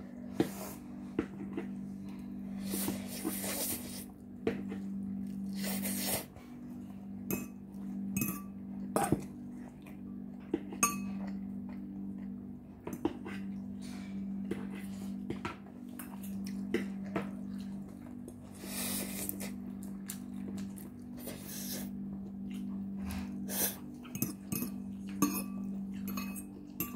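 Metal fork clinking and scraping against a bowl while noodles are twirled and eaten, with several longer noisy slurps between the clicks. A steady low hum runs underneath.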